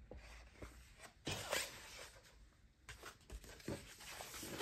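Sheets of glossy vinyl and sticker paper rustling and crackling as they are handled and shuffled, in a few irregular bursts, the loudest about a second and a half in, with a few soft taps.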